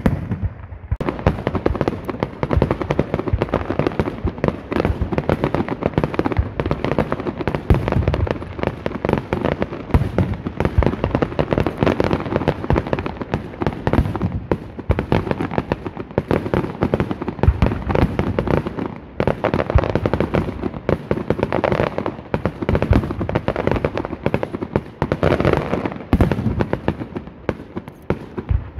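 Aerial fireworks shells bursting in a dense, continuous barrage of bangs and crackle, many a second, starting abruptly about a second in.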